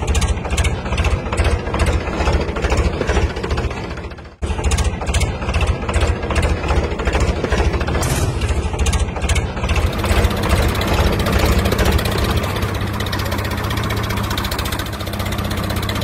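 Dubbed-in tractor engine sound running with a rapid, even chugging beat. It drops out for a moment about four seconds in, and from about ten seconds on it runs smoother and steadier.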